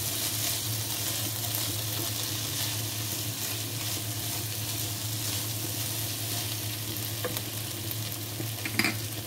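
Chicken strips and julienned vegetables sizzling in a nonstick wok while a slotted spatula stirs and scrapes through them, over a steady low hum. A single sharp knock comes near the end.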